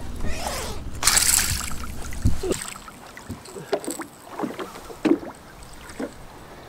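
Largemouth bass thrashing and splashing at the surface beside a boat as it is hand-lined in, with a burst of splashing about a second in and scattered knocks and water sounds after it. A low rumble runs under the first couple of seconds.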